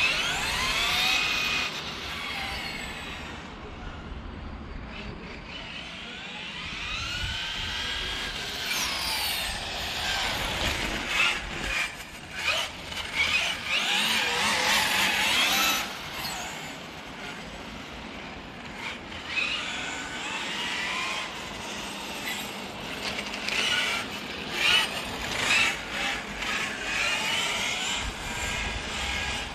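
Radio-controlled MCD XR5 car with a 20S brushless SSS 230KV electric motor driving laps. Its motor whine rises and falls over and over as it speeds up and brakes, with tyre noise on the asphalt.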